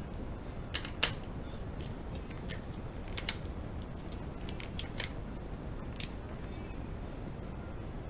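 Scattered sharp plastic clicks and taps of felt-tip pens being handled and a pen cap pulled off, the loudest about a second in, over a steady low hum.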